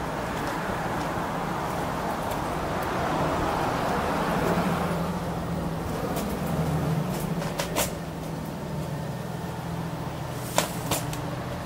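Road vehicle noise: engine hum and tyre noise that swells to a peak about four to five seconds in and then fades, with a few sharp clicks near the end.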